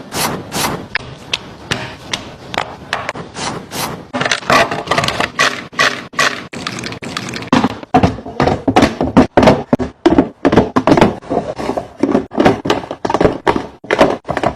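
A rapid, irregular run of knocks, clicks and clatters, several a second, as containers and food items are handled, set down and moved about.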